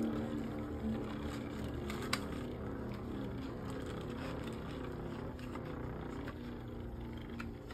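Two Beyblade spinning tops circling in a clear plastic stadium: a steady whirring hum that is strongest at the start and eases within about a second, with a few sharp clicks, the loudest about two seconds in.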